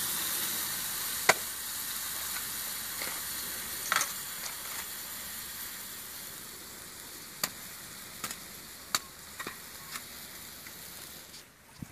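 Chicken sizzling in a wok, a steady high hiss that slowly fades, with a handful of short sharp clicks scattered through it.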